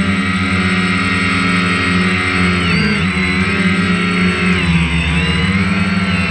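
DJI Phantom quadcopter's four electric motors and propellers whining steadily, heard up close, their pitch sliding up and down as the drone adjusts its speed and turns.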